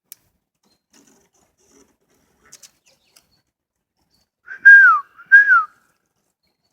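Two loud whistled calls, one right after the other about four and a half seconds in, each holding a steady note and then sliding down in pitch, from an unidentified source taken for an unknown animal.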